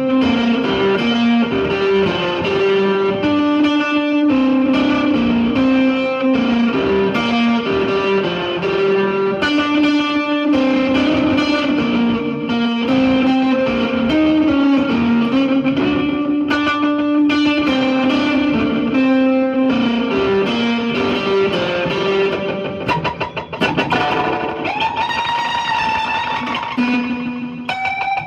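Electric guitar played through a delay pedal: a fast melodic riff of quickly repeating picked notes with echoes. Toward the end it gives way to held notes that bend in pitch.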